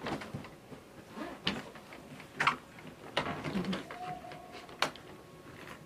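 Handling a hard-shell suitcase: scattered clicks and knocks with light rustling, the sharpest click about five seconds in.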